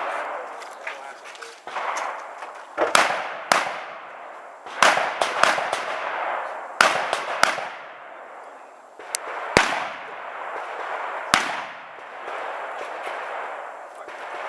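Rifle fired in a string of about eight irregularly spaced shots, each one cracking sharply and echoing away.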